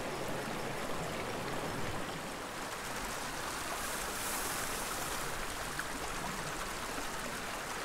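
Small, shallow mountain creek running steadily over a cobble and gravel bed.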